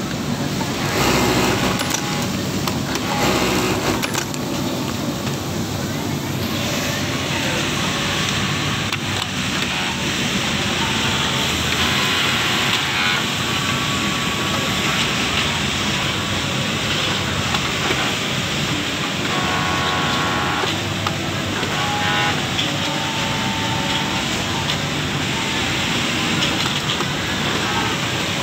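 Garment-factory floor din: many industrial sewing machines running at once in a steady wash of mechanical noise, with workers' voices mixed in.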